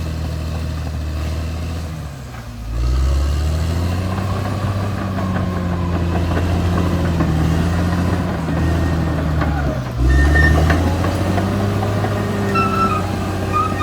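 Caterpillar D6R XL bulldozer's diesel engine running under load, with scattered knocks and clicks. The engine pitch sags briefly about two and a half seconds in and again about ten seconds in, then climbs back each time.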